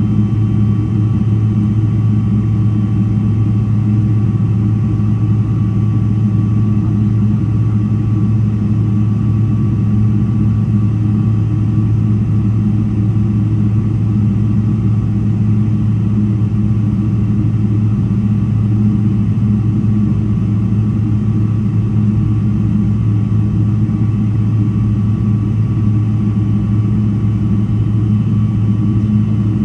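Steady low drone inside the cabin of a Boeing 777-300ER standing on the ground, its GE90 engines idling, with a few faint steady whines above it.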